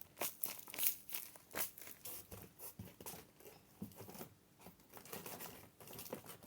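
Paper crinkling and rustling in short irregular bursts as a handmade paper squishy is handled and packed.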